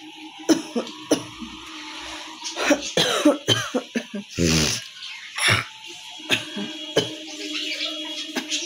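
A woman coughing repeatedly, about eight separate coughs, with a longer rasping throat-clearing near the middle.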